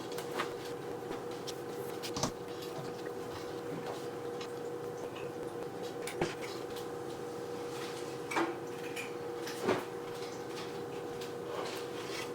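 A few light knocks and clicks of objects being handled, over a steady, even hum.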